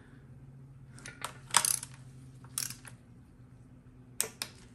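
Sharp metallic clicks and clinks from a click-type torque wrench and socket as the valve body bolts are being torqued. The loudest is a quick cluster of clicks about one and a half seconds in, and there are a few lighter clinks later on, over a faint steady hum.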